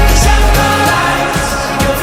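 Pop song playing as background music, with singing over a heavy bass beat; the bass drops out a little past halfway.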